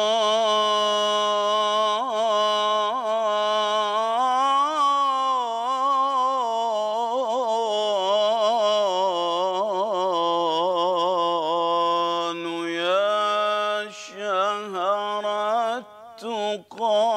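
A man singing an unaccompanied Egyptian Islamic ibtihal in one long melismatic line, his voice winding in quick ornaments and vibrato around a held pitch. Near the end he breaks off briefly a few times between phrases.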